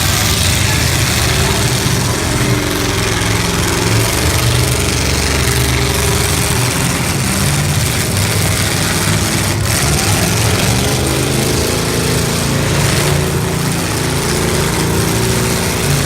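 Engines of several full-size demolition derby cars running and revving together, their pitches shifting up and down, loud and steady.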